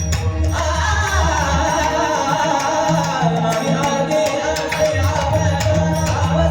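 A devotional abhang sung by a male voice in long, ornamented melodic phrases over steady mridang drum strokes.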